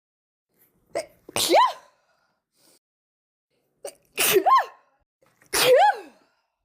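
A woman sneezing three times in a fit. Each sneeze is a short catch of breath, then a sharp burst that ends in a rising-then-falling cry. The second and third sneezes come close together.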